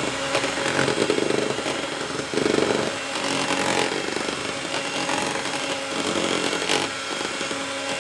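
Electric hand mixer running steadily, its beaters whisking a runny chocolate cake batter of eggs, sugar, oil, milk and cocoa.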